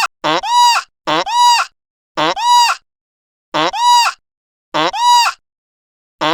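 A nasal honking animal call repeated about six times at uneven gaps of one to one and a half seconds. Each call is the same: a quick rise in pitch, then a short held note.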